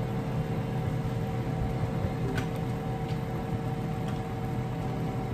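Steady fan hum of a running kitchen appliance, with a constant whine over a low rumble and a couple of faint light clicks near the middle.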